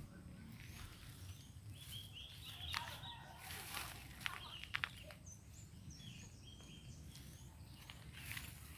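Faint background birds chirping and chickens calling, with a few short sharp clicks in the middle.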